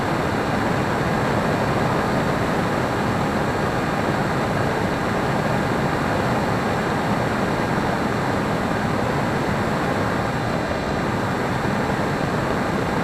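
HobbyKing Breeze model plane in flight, heard through its onboard camera: the electric motor and propeller running at steady throttle under a constant rush of wind noise, with faint steady tones over it.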